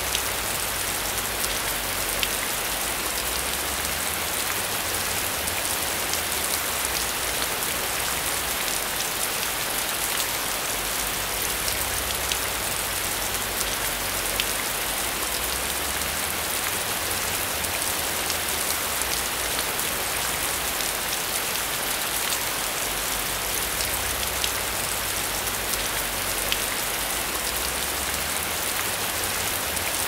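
Steady rain falling on leaves in woodland: an even hiss, with scattered sharp taps of single drops.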